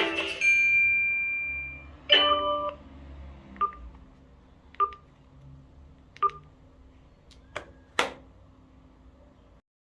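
Sonim XP3 phone: a mallet-like ringtone melody ends just after the start and a single held beep follows until about two seconds in. Then a short, louder chord of beeps sounds, followed by five sharp clicks about a second apart, the first three each carrying a brief beep.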